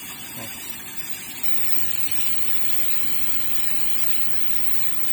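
Steady, even hiss with no distinct clicks or strokes.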